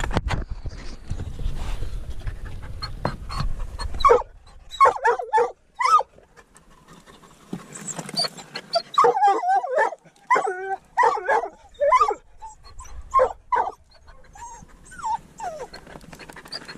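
A hunting dog whining and yipping in many short, excited bursts that bend up and down in pitch, starting about four seconds in, as it works a mink's hiding place among the rocks. Before that, low rubbing and rustling against the microphone.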